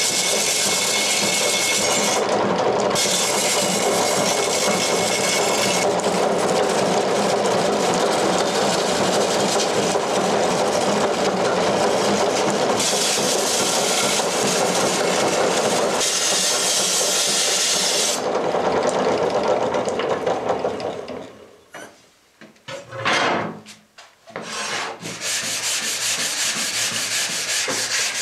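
A hand-forged iron cleaver blade is ground against an abrasive drum on a foot-treadle lathe, making a steady grinding hiss. After a brief break about 22 seconds in, the blade is hand-sanded flat with a sanding block on the bench in quick back-and-forth rubbing strokes.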